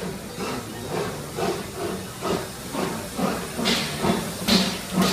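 Small steam locomotive moving slowly past along a station platform: a regular chuffing beat about two a second that slows slightly, with loud bursts of hissing steam about two thirds of the way in and again near the end as the engine comes alongside.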